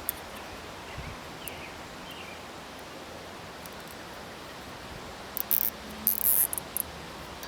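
Steady outdoor background hiss, with a few short, high-pitched rasping bursts about five and six seconds in as the tank monitor's sensor cable is handled and routed.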